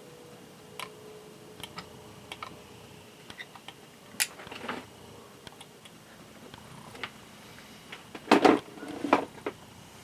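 A soldering gun held on a heavy solder joint, with a faint steady hum through the first few seconds and small scattered clicks and crackles. A louder clatter comes about eight seconds in.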